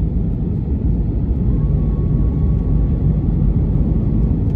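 Steady low cabin rumble of engine and airflow noise heard from a window seat inside a flynas Airbus A320-family airliner in descent. A faint thin whine sits above it from about a second and a half in until near the end.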